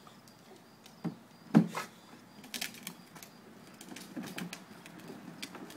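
Knocks and clicks from a toddler's plastic Little Tikes Cozy Coupe ride-on car being jostled and rolled on concrete. The loudest is a sharp knock about one and a half seconds in, followed by a quick run of lighter clicks and a few scattered ones later.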